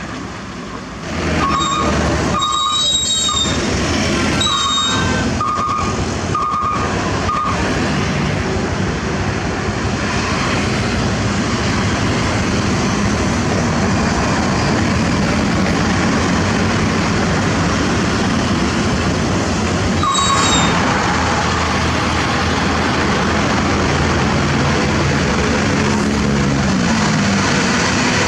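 Heavy diesel machinery running steadily with a loud, dense rumble. Over it comes a run of short, high-pitched metallic squeals in the first several seconds and one more about twenty seconds in.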